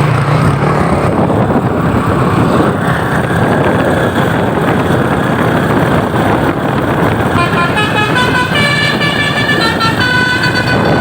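Truck engine running loudly. About seven seconds in, a Basuri multi-tone 'telolet' horn starts playing a tune of high notes that step from pitch to pitch.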